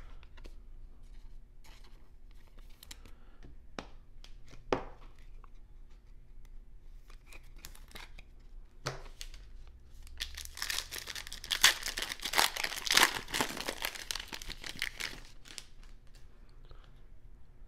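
Foil wrapper of a Bowman baseball card pack being torn open and crinkled, a dense crackling that starts about ten seconds in and lasts about five seconds. Before it, only light ticks and taps of cards being handled.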